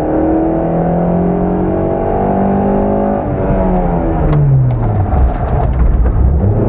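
Opel Corsa A GSI rally car's four-cylinder engine at full throttle, heard from inside the cabin: the revs climb steadily for about three seconds, then fall away as the car slows for a bend. Near the end, gravel crunches and stones click against the underside.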